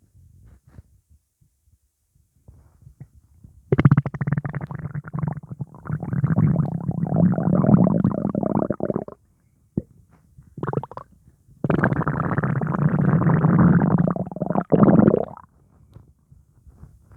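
Upset, gassy stomach rumbling in two long bouts of several seconds each, with a short burst between them; the gas is put down to pizza.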